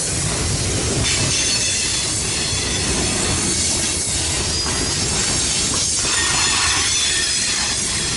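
Freight train cars rolling past at track side: a steady noise of steel wheels on rail, with a faint high-pitched wheel squeal over it.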